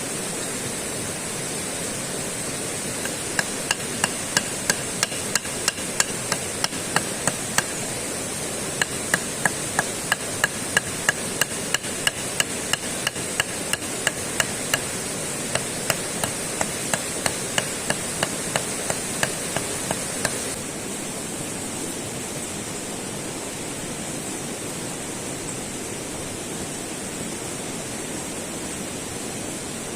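Rapid hammering blows, about two or three a second, in three runs with short pauses between them, each strike giving a brief ringing note. A steady rushing noise runs underneath, and its hiss drops off after the last blows.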